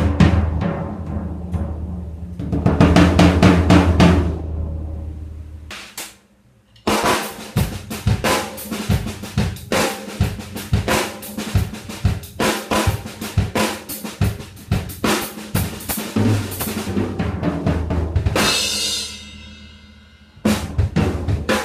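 A ddrum Max Series maple/alder drum kit being played hard: two big hits with bass drum and cymbals ringing out, a brief pause, then a long run of fast strokes around the snare, toms and bass drum. A cymbal crash rings and fades near the end, and the playing starts again abruptly.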